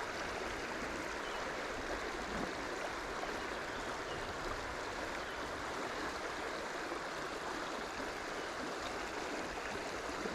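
Steady rush of creek water running over rocks, a running current.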